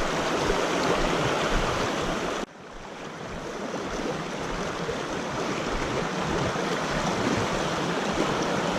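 Shallow river current running over stones, a steady rushing of water. It drops suddenly about two and a half seconds in, then builds back up over the next couple of seconds.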